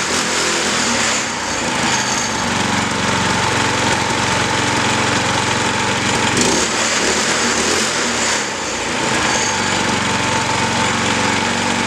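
Predator 212cc single-cylinder go-kart engine running loudly and being revved up and down, easing off briefly about a second in and again around eight and a half seconds. It is running after sitting unused in the rain for ten months.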